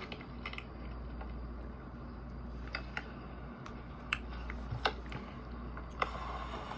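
A handful of short, sharp clicks, about five, scattered over a steady low hum and hiss.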